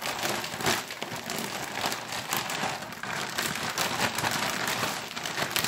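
Plastic zipper-lock bag holding chicken in a dry flour and breadcrumb coating, crinkling and rustling with irregular small crackles as it is kneaded and pressed by hand.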